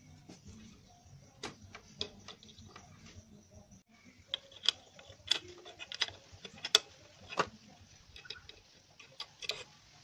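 Irregular small clicks and taps of plastic wiring connectors and wires being handled at a motorcycle's horn.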